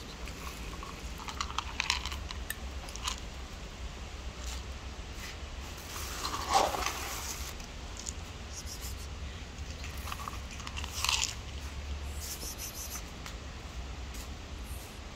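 Dry cat kibble rattling and crunching as it pours from a plastic scoop onto stone, with scattered clicks. About six and a half seconds in a cat meows once, the loudest sound.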